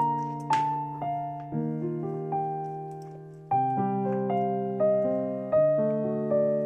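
Background piano music: a slow melody over sustained chords, each note struck and then fading.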